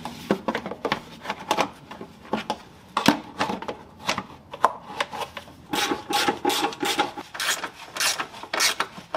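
Hand-tool work on metal: a ratchet wrench clicking in quick repeated strokes as bolts are run in, the strokes getting more regular and louder about six seconds in.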